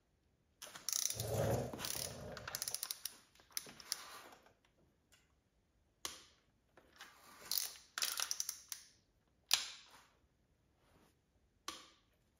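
Ratchet socket wrench clicking in several short runs of rapid clicks, with quiet gaps between, while a timing-belt pulley bolt is tightened; the loudest run comes about a second in.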